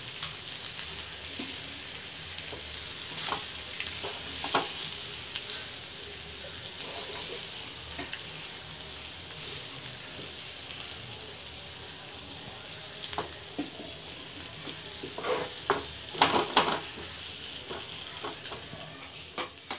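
Halved boiled eggs and onion masala sizzling in oil in a non-stick kadai, with a wooden spatula scraping and tapping the pan as the eggs are turned over. A cluster of louder scrapes comes about fifteen seconds in.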